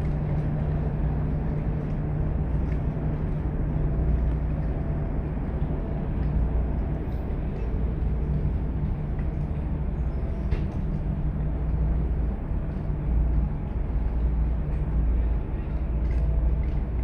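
Steady low engine drone with a constant hum, mixed with wind and water noise.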